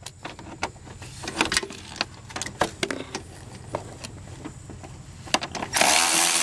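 Metal clicks and taps as a ratchet with a socket extension is worked onto a bolt. Near the end a Milwaukee cordless 3/8 ratchet starts running steadily, spinning out a 10 mm bolt.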